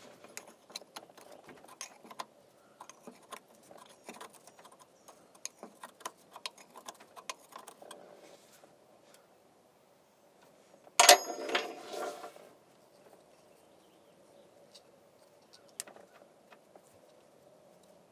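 Scattered small metallic clicks and rattles from handling parts and a hand-held camera, then a loud short burst about eleven seconds in.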